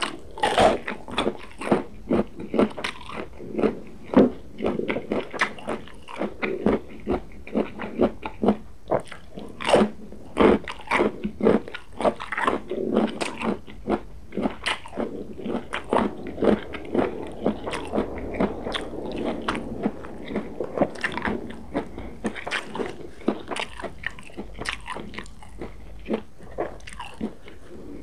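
A person biting into and chewing crunchy vegetables: a quick, irregular run of crisp crunches, several a second, with softer chewing between them.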